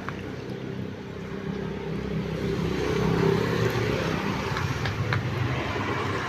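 Vespa scooter engine running at a steady idle, picking up a little around the middle before settling, during a check of the carburettor intake for a suction leak.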